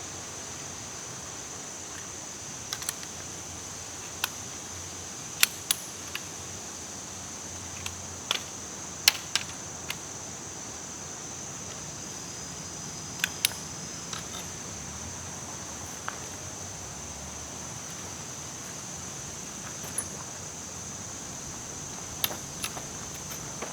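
Irregular sharp clicks and taps, about a dozen spread unevenly, the loudest around five and nine seconds in, over a steady high-pitched hiss.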